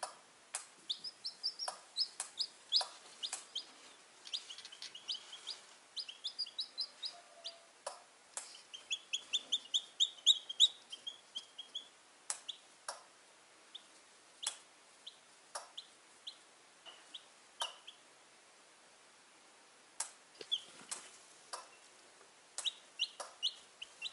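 Newly hatched chicks peeping in runs of short, high chirps, busiest about nine to eleven seconds in, with scattered sharp clicks between them.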